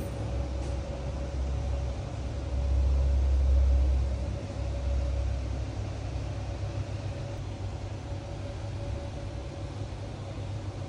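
Steady low rumble with a constant mid-pitched hum from the room's fans and air conditioning. The rumble grows louder for about two seconds a few seconds in.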